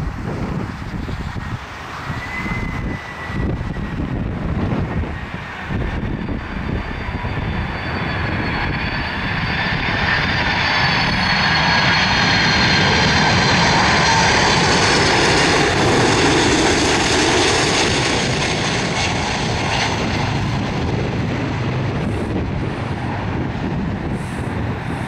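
Boeing 747 freighter's four jet engines on landing approach: a steady roar with a high whine that drifts slightly down in pitch, building to its loudest a little past the middle as the jet passes close by, then easing off.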